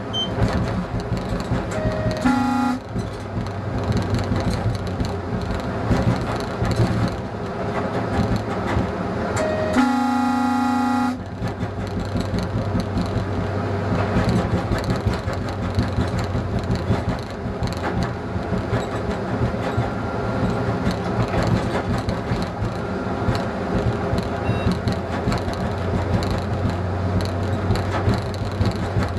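ČD class 854 diesel railcar running along the line, its engine humming and its wheels running on the rails. The horn sounds twice: a short blast about two seconds in and a longer one of just over a second about ten seconds in, each starting with a brief higher note.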